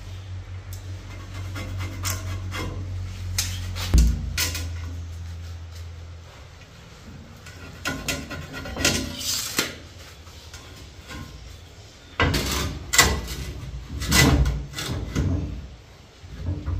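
Irregular knocks, clatter and scraping of hard objects being handled, over a steady low hum that stops about six seconds in.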